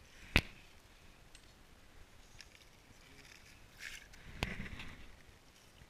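A single sharp knock, then about four seconds in a short scraping rustle with another click: handling noise from an angler moving on the ice beside a fishing hole.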